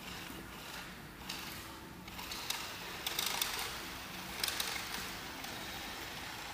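Small electric drive motors of a Roomba-style robot whirring steadily as it rolls across a tile floor, with a few scattered clicks and scuffs.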